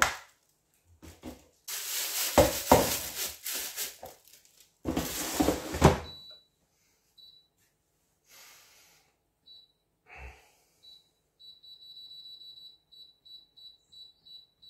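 Plastic roasting bag rustling and the air fryer basket being handled, with knocks, then a clunk as it goes back into the Go Cook air fryer. From about eleven seconds in, a run of short, high beeps from the air fryer's touch panel as the cooking time is set.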